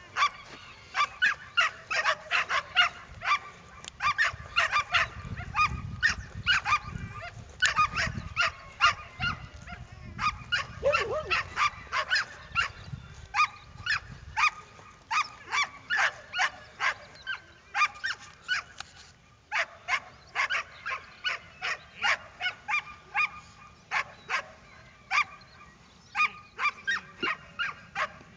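A dog barking and yelping excitedly over and over, two or three high-pitched barks a second, with short breaks.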